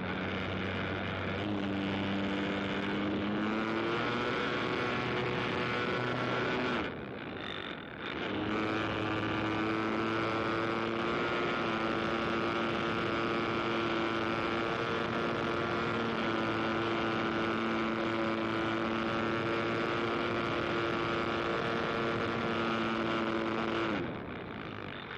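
An engine running at steady speed. Its pitch steps up twice in the first few seconds, it cuts out briefly about seven seconds in, then it holds one even pitch until it stops near the end.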